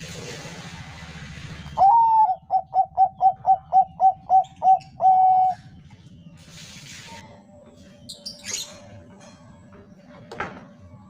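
Zebra dove (Bangkok perkutut) singing one song about two seconds in: an opening coo, a quick run of about ten short cooing notes, then a longer held final note.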